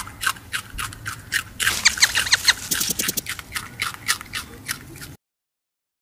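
A rabbit eating: quick, crisp crunching chews, about three a second, that come faster and louder in the middle, then stop abruptly about five seconds in.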